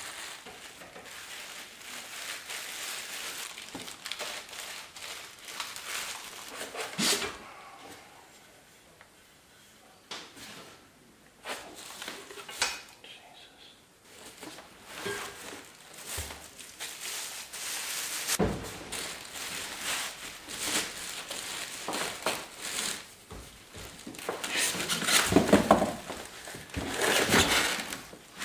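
Plastic wrapping crinkling and rustling while a pillar drill is unpacked from its box, with scattered knocks of the cast-iron parts and packing. It is loudest near the end, as the drill head is lifted out of its polystyrene packing.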